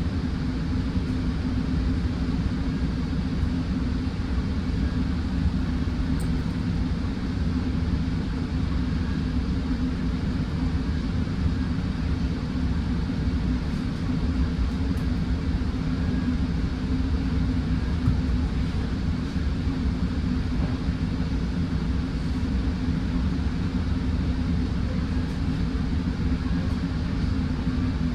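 Steady low rumble of a Metrolink passenger train running along the track, heard from inside a coach, with a few steady low hums in it and no marked changes.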